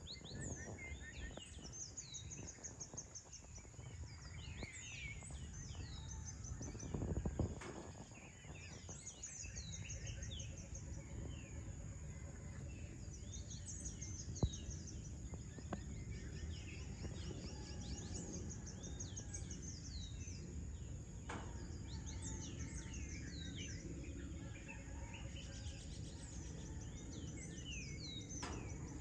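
Birds chirping and calling, with many short, quick down-slurred chirps repeated throughout. Under them runs a steady high-pitched tone and a low background rumble, with a brief louder rush of low noise about seven seconds in.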